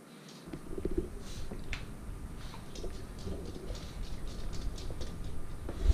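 A Boston terrier's claws ticking irregularly on a hardwood floor as it walks, mixed with a person's footsteps. A low rumble of movement starts about half a second in and runs underneath.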